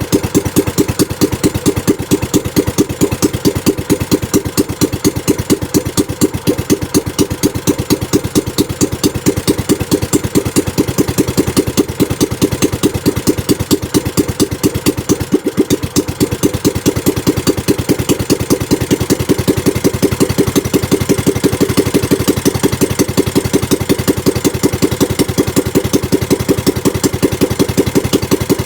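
Small boat engine running steadily at idle on a newly fitted replacement carburetor, its firing pulses even, with a brief stumble a little past the middle.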